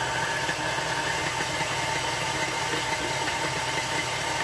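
KitchenAid tilt-head stand mixer running at a steady speed, its flat beater turning in a stainless steel bowl as it beats mashed potato into a soft batter. The motor gives a steady hum with a steady whine.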